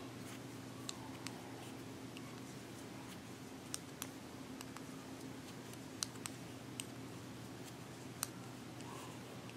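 Knitting needles clicking lightly and irregularly as stitches are purled, about eight small clicks spread out over a faint steady low hum.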